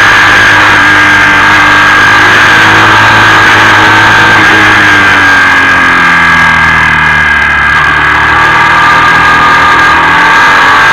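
Motorcycle engine running on the move under heavy wind rush, with a steady high tone throughout. The engine note falls about five seconds in as the rider rolls off, then runs on at lower revs.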